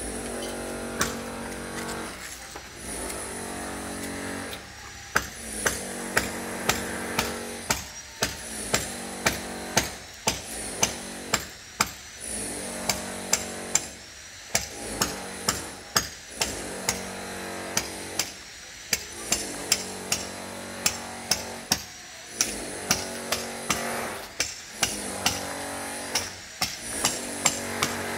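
Sharp knocks at irregular spacing, like hammering, over a pitched sound that starts and stops every second or two.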